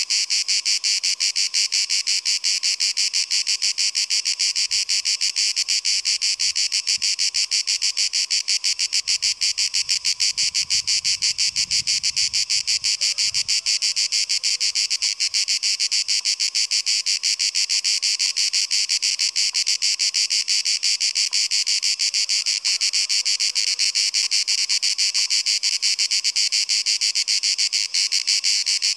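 Cicadas calling in a loud, unbroken chorus: a dense, very fast pulsing buzz that holds steady throughout.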